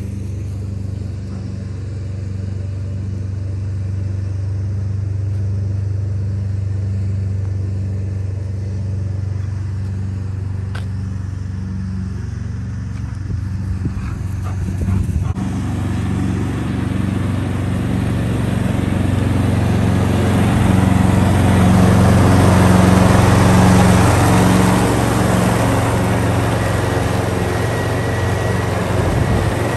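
Husqvarna ride-on lawn mower running steadily with a low, pulsing engine hum. It grows louder in the second half as the mower comes near, with the rush of its cutting deck added.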